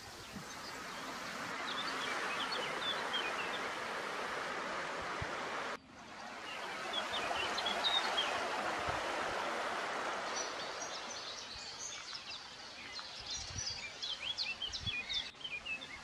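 Outdoor field ambience: a broad rushing noise that swells and fades, with small birds chirping over it, the chirping getting busier toward the end. The sound breaks off abruptly about six seconds in and starts again, with another sudden break near the end.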